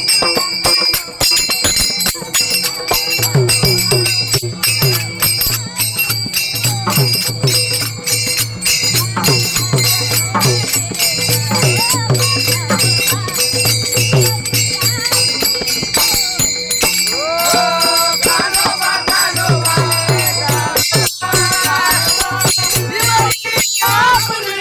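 Warkari bhajan music: small hand cymbals clash in a fast, continuous rhythm over a beating drum. A voice sings the gavlan melody in the latter part.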